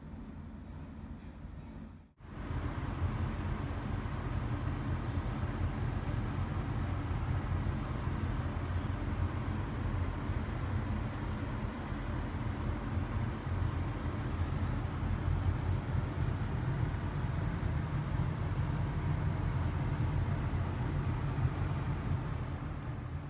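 Outdoor night ambience: a steady low rumble of distant traffic with a continuous high-pitched whine over it. About two seconds in the sound drops out for a moment and comes back louder.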